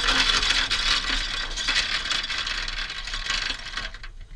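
Anchor chain rattling over a sailboat's bow windlass: a dense, fast clatter that stops abruptly about four seconds in.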